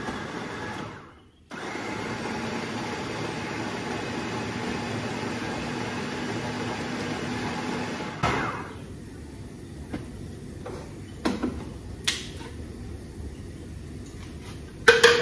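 Countertop blender with a stainless-steel jug running steadily as it blends a smoothie; it winds down about a second in, is switched straight back on, and stops about eight seconds in. A few clinks and knocks follow as the jug is handled, the loudest near the end.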